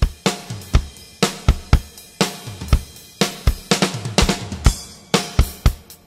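Acoustic drum kit with Sabian cymbals played in a steady groove: deep bass drum hits about every half second to second, with snare hits and ringing cymbals over them.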